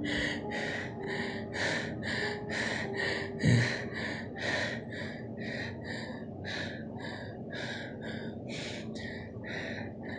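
Quick breathy puffs, about three a second, like rapid panting breaths, with one dull thump about three and a half seconds in.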